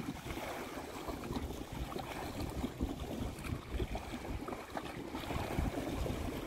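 Wind buffeting the microphone in an uneven low rumble, over the wash of rippling river water.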